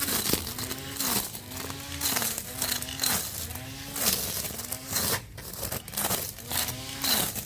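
12 V cordless Mailtank SH226A grass trimmer's motor running under load, its hum rising and falling in pitch about twice a second as it sweeps through grass. A dense crackle of cut grass and debris runs along with it.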